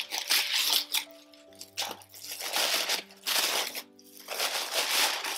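Tissue paper crinkling in several bursts as a wrapped gift is pulled open, over soft background music with held notes.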